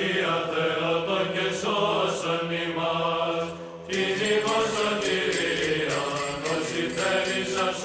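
Byzantine chant: a sung melody over a steady held drone note, with a brighter, fuller phrase starting about four seconds in.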